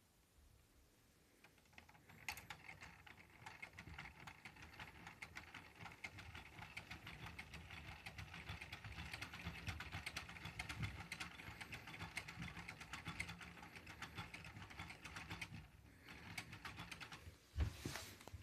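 The motorized gear train of a Kalos Blocks 55004 Power Research Institute brick model running, its plastic gears making a steady, rapid, fine clicking. The clicking drops away for a moment near the end, then comes two louder knocks.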